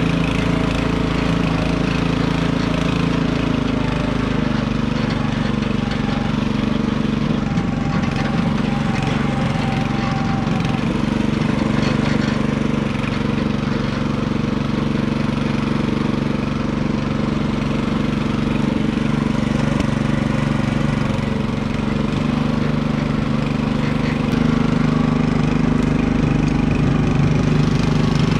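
Small engine running steadily, its speed shifting slightly a few times.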